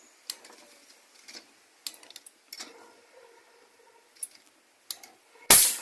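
Sparks snapping between a screwdriver and the charged net of an electric mosquito bat: scattered sharp clicks, then one much louder crack near the end. The sparking shows the bat's high-voltage circuit is working again now that it runs on a good battery.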